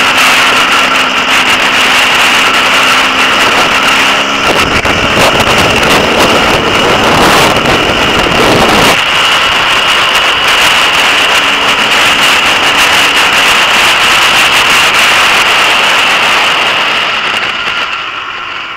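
Off-road motorcycle engine running steadily at speed, heard from the bike under heavy wind noise on the onboard microphone. A heavier wind rumble comes in from about a quarter to halfway through, and the sound eases off slightly near the end.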